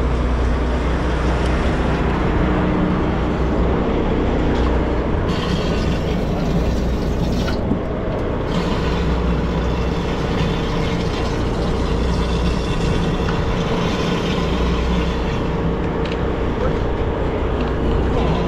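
Steady engine drone of a vehicle under way, with a constant low hum and a faint steady tone above it.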